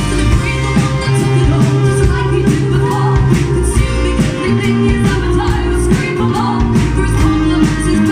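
Rock-pop song played by a band: guitar and sustained notes over a steady drum beat.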